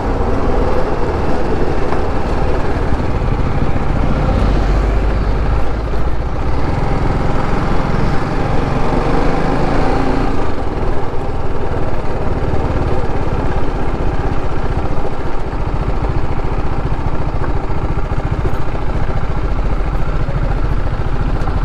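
Motorcycle engine running steadily while the bike is ridden, with constant wind and road noise on the helmet-mounted microphone.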